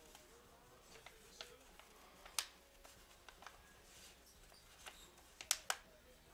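Faint room tone broken by a few scattered sharp clicks and taps. The clearest comes about two and a half seconds in, and two more come close together near the end.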